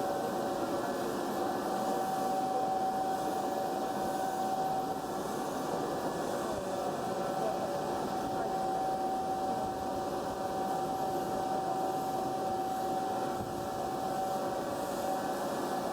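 BTA deep hole drilling machine running: a steady mechanical hum with a clear held high tone over it.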